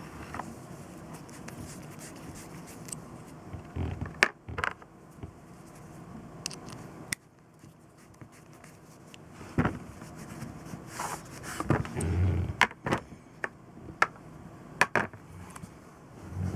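Hand work on metal engine parts: scattered sharp clicks, light knocks and scrapes, with a couple of dull thumps, about four seconds in and again near twelve seconds.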